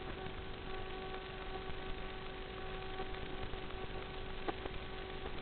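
Steady static hiss with a faint hum of several steady tones, from the audio track of FPV goggles' DVR recording. Two brief clicks about four and a half seconds in.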